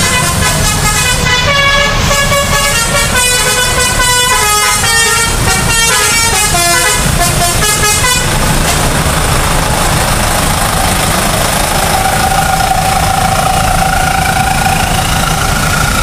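Basuri-type telolet bus horn, a multi-note musical air horn, playing a quick tune of stepped notes for about eight seconds. After that a fainter long held horn tone sounds over traffic noise.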